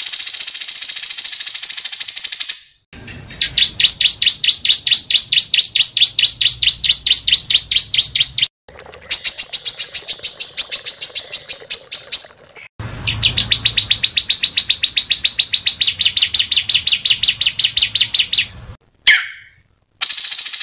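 A small songbird calling in long, rapid runs of sharp, high chip notes, about eight a second. The runs come in several bouts of a few seconds each, which start and stop abruptly.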